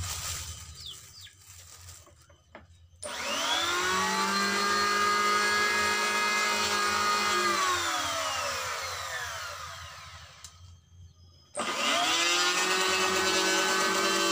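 Electric hand planer switched on about three seconds in, running steadily, then switched off and winding down with a falling whine. It starts again about a second after it stops and runs on.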